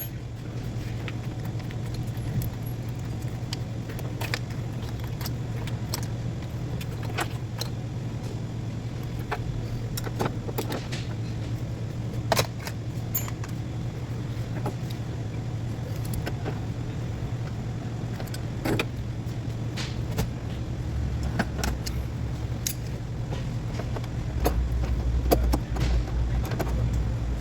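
Scattered light metallic clinks and taps of hand tools on engine parts, over a steady low hum. A deeper rumble joins about twenty seconds in.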